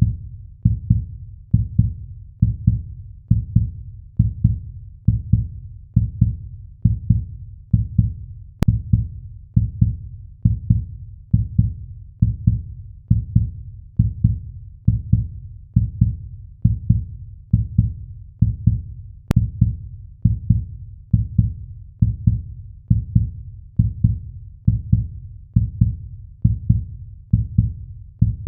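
Heartbeat sound effect: a steady, deep double thump (lub-dub) repeating at about one beat a second.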